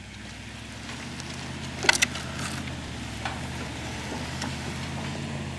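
Four-wheel-drive truck's engine running steadily under load while pulling a log on a chain, slowly getting louder. A brief clatter of sharp knocks about two seconds in.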